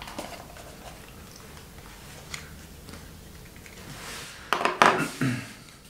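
Hands handling a headset, with soft rustles and small clicks. About four and a half seconds in comes a short cluster of loud rustling and knocks.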